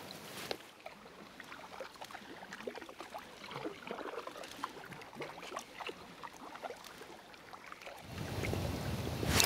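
Faint water lapping against a paddleboard hull, with scattered small splashes and drips. A louder, steady rush of noise swells in near the end.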